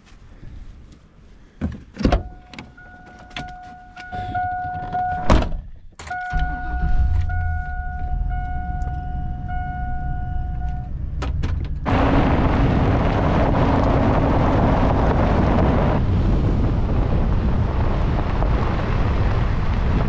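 Pickup truck: a door clicks open and slams shut, and a warning chime beeps steadily for several seconds. The engine starts about six seconds in and runs; from about twelve seconds the truck drives off on gravel, with loud, steady road and wind noise.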